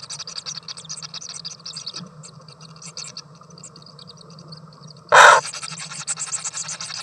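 A bird gives one loud, short, harsh call about five seconds in, over a continuous fast high ticking chirr and a low steady hum.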